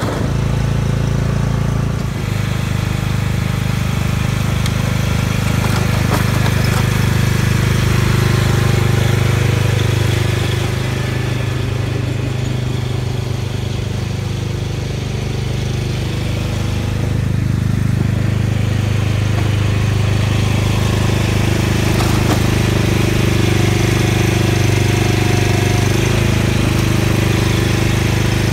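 Cub Cadet XT1 lawn tractor's engine running steadily, a little quieter midway and louder again near the end as the tractor comes back into view.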